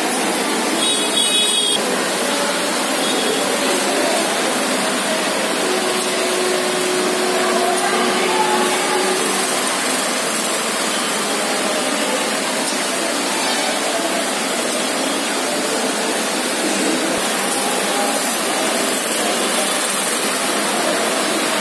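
Steady, loud rushing background noise of a railway station platform. A brief high sound comes about a second in, and a thin steady hum runs from about six to nine and a half seconds in.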